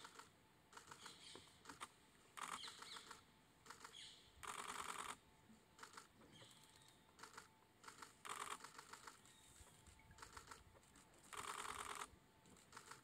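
Camera shutters firing in rapid bursts, four bursts of under a second each, with scattered single clicks between them over near quiet.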